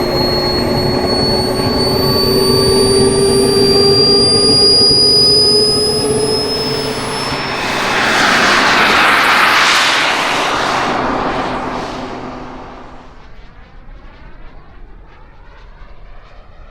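Radio-controlled model jet's gas turbine running with a high whine that climbs slowly in pitch, then a loud rushing pass about halfway through, fading away into a faint hiss for the last few seconds.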